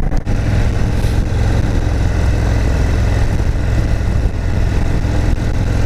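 Indian Super Chief Limited's Thunderstroke 116 V-twin running steadily at cruising speed, a low even note with no revving, under wind and road rush.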